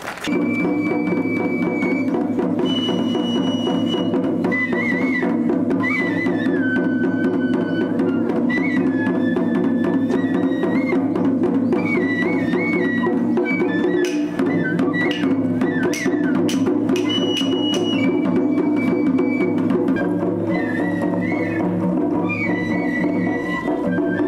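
Traditional kabuki stage music: a bamboo flute holds long high notes and slides between them over a steady, dense low drumming. Sharp percussion strikes come here and there, most thickly in the middle.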